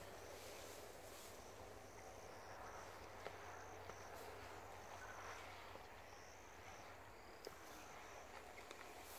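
Faint insect chirping: short high-pitched trills repeating every second or so, with a couple of soft clicks.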